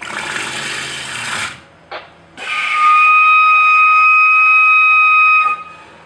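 Pacific walrus whistling, one loud steady note held for about three seconds, after a short breathy rush of air.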